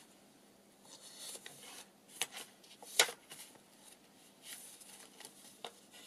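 Paper pages and card tags of a handmade journal being turned and handled, soft rustling and rubbing with a few light taps, the sharpest about three seconds in.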